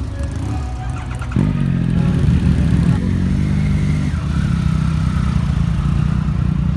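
Motorcycle engine running. About a second and a half in it is revved up sharply, then it settles back to a steady run.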